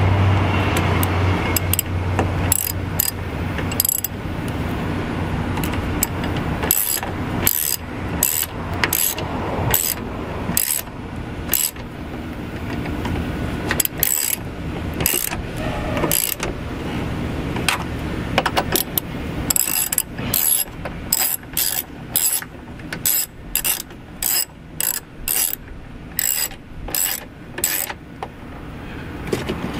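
Socket ratchet wrench with an extension clicking in runs of back-and-forth strokes as it tightens the screws that hold a tow mirror to a truck door. Near the end the strokes come evenly, about two a second.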